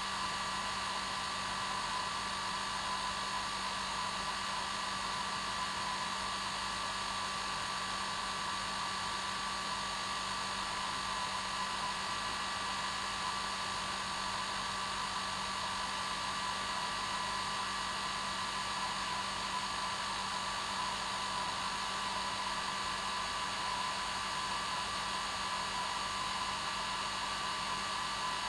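Hair dryer running steadily, a constant rushing blow of air with a steady motor hum and whine and no change in speed.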